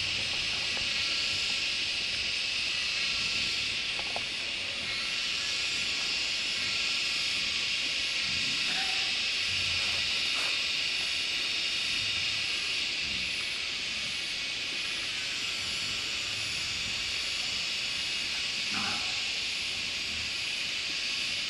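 Wild boar and piglets foraging in grass, with a few short low grunts and scattered clicks, under a steady high-pitched hiss.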